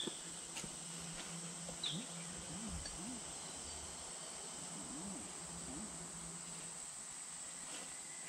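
Steady high-pitched insect chorus, with two short bird chirps in the first two seconds and a few faint clicks.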